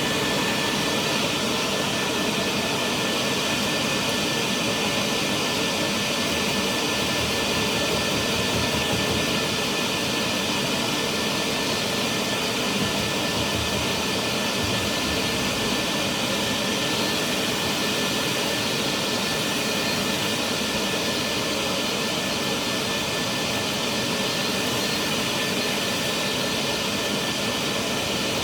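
Dryer vent cleaning machine running steadily, with a rushing of air and a constant high motor whine.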